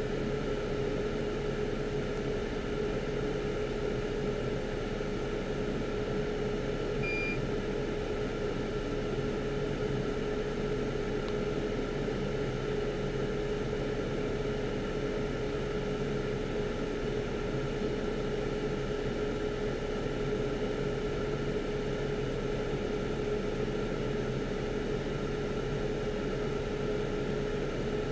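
Steady machine hum with a constant mid-pitched tone running under it, and a single short high beep about seven seconds in.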